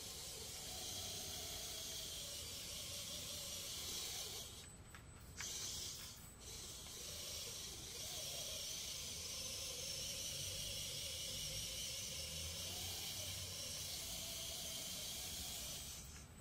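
Tiny electric motor and gears of a 1:64 micro RC car whirring as a steady high hiss, with a faint wavering whine underneath. It cuts out briefly about four and a half seconds in and again near six seconds.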